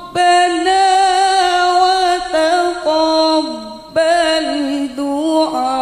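A woman's solo voice reciting the Quran in the melodic tilawah style into a handheld microphone. She holds long notes with wavering ornaments, pausing briefly for breath between phrases.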